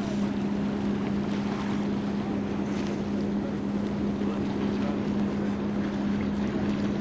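A motorboat engine running at a steady, unchanging pitch, with wind noise on the microphone.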